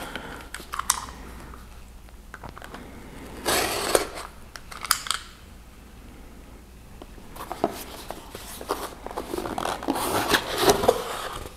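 Cardboard box being handled and opened by hand: scattered taps and clicks, short scraping bursts about three and a half and five seconds in, then a longer stretch of cardboard scraping and rustling near the end.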